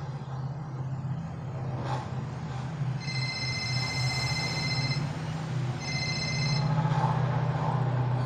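Television soundtrack of a crime drama: a steady low drone throughout, with a high electronic ringing tone, like a phone ringing, sounding for about two seconds from about three seconds in and again briefly near six seconds.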